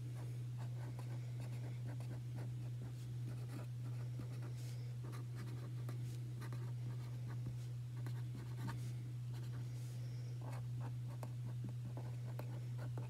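A pen writing on a sheet of paper laid on a tabletop, a run of short, faint scratching strokes. Under it runs a steady low hum.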